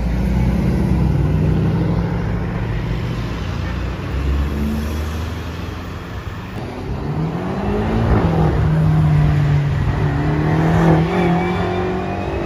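Mercedes-AMG C63 engine rumbling at low revs, then revving up about seven seconds in and pulling hard under acceleration.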